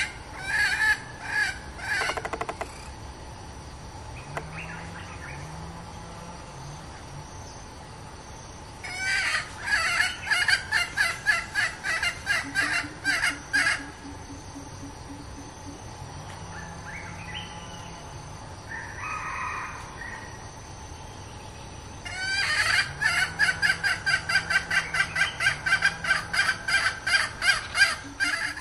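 Junglefowl hen giving long, fast series of clucking calls, about three a second, in three bouts: a short one at the start, one about 9 seconds in, and a longer one from about 22 seconds in to the end.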